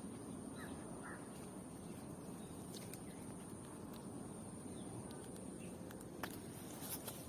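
Quiet outdoor ambience: a low steady rumble with a thin, steady high-pitched whine, a few faint short chirps in the first second or so, and a few sharp clicks near the end.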